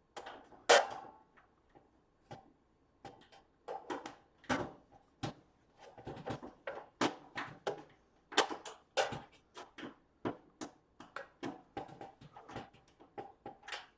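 Irregular metallic clicks and knocks, two or three a second, from an electric stove's sheet-metal panels, screws and tools being handled during reassembly.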